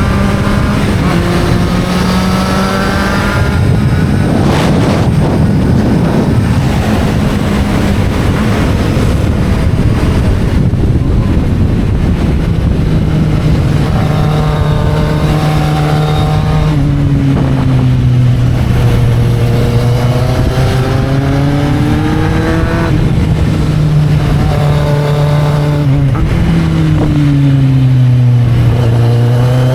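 Kawasaki Z750 motorcycle engine on the move, its pitch rising and falling with the throttle and gear changes, with wind rushing over the microphone for several seconds early on. The engine note sinks twice as the bike slows, then climbs again as it pulls away near the end.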